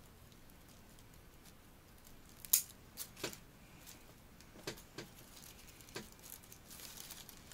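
Bonsai pruning shears snipping twigs off a Korean hornbeam bonsai: about seven short, sharp clicks over a few seconds, the first, about two and a half seconds in, the loudest, with fainter ticks near the end.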